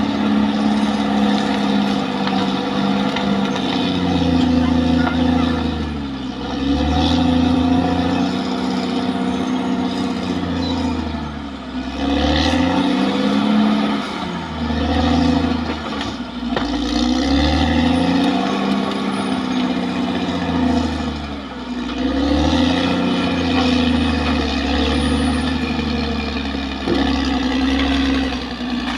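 Caterpillar D6R XL bulldozer's diesel engine running hard, its pitch sagging and climbing back every few seconds.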